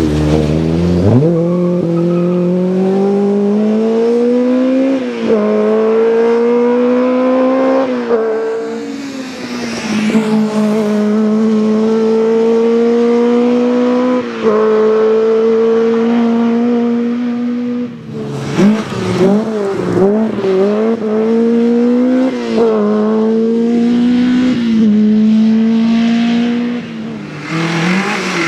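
Volkswagen Golf Mk1 rally car's four-cylinder engine driven hard, its note climbing steadily and dropping back sharply at each upshift, several times over. It comes close and fades away again with each pass.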